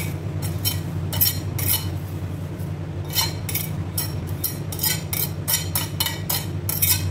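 A kitchen knife scraping and tapping against a ceramic plate as chopped herbs are pushed off it, a run of short clinks a few times a second.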